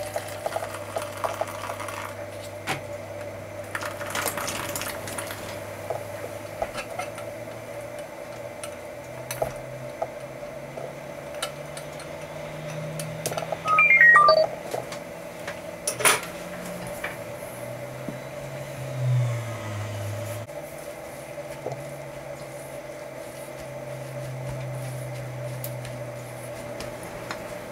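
A stainless-steel saucepan clinks against a large stainless-steel mixing bowl as liquid is poured onto bread flour, with one louder ringing metal clink about halfway through. Near the end comes the soft sound of bare hands working the wet dough in the bowl.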